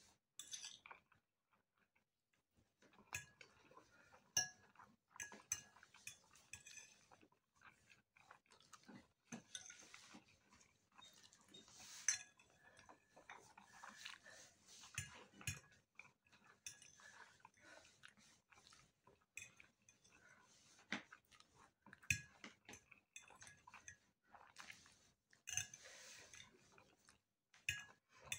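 Quiet close-up chewing of macaroni, with a metal fork clinking and scraping on a plate every few seconds.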